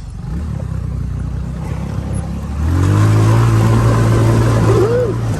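200cc off-road go-kart engine running, then revving up about two and a half seconds in and holding a steady, louder high rev as the kart accelerates.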